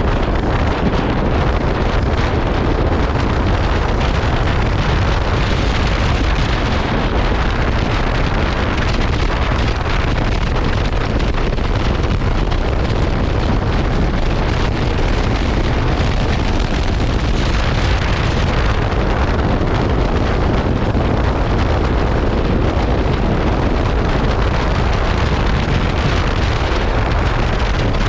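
Wind buffeting the microphone at riding speed, steady and loud, over the KTM 390 Adventure's single-cylinder engine running underneath.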